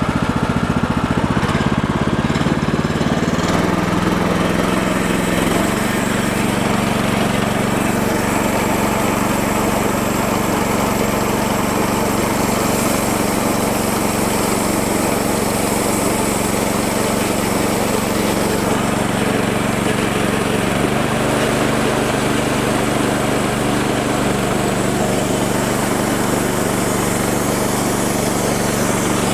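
Small gasoline engine of a Woodland Mills HM-126 bandsaw mill running steadily as it warms up. Its pitch rises in steps over the first few seconds and its tone shifts again about two-thirds of the way through.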